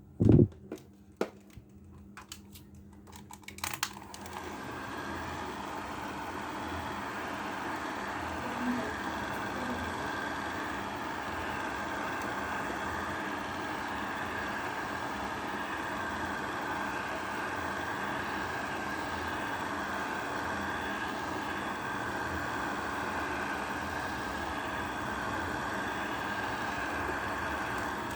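A few clicks and knocks, then a hair dryer switched on about four seconds in and running steadily, heating the phone to soften the screen's adhesive.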